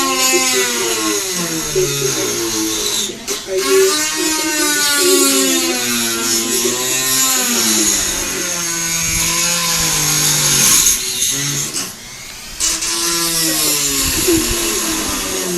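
A person making vocal sound effects: a buzzing, raspy voice held in long sweeps that glide up and down in pitch, drill-like, with short breaks about 3 seconds in and about 12 seconds in.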